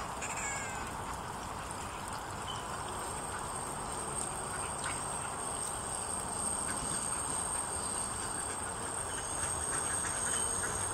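A flock of Canada geese on the water, with a few short calls near the start, over a steady even background noise. A thin high whine sets in about three seconds in.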